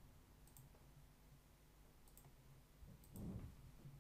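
Near silence with a few faint clicks from working a computer, coming in quick pairs, and a soft low thump about three seconds in.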